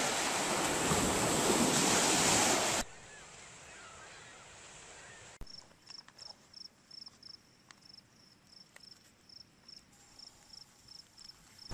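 Wind and water noise over open lake water, steady and loud, cut off abruptly about three seconds in. After a quieter stretch, a short high-pitched chirp repeats about four times a second through the second half.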